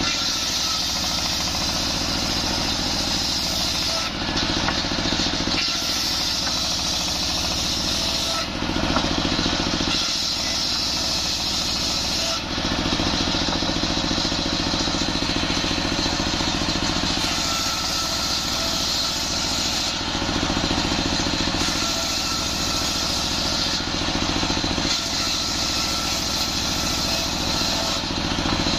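Single-cylinder diesel engine chugging steadily as it drives a belt-driven circular table saw ripping jackfruit wood into planks. The blade's high cutting hiss swells and drops back every few seconds as each board is pushed through.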